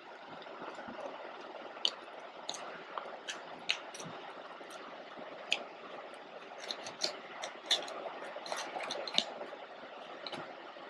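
A pit bull puppy licking and chewing at a chocolate mousse dessert cup: irregular wet smacks and small clicks, coming thicker in the second half.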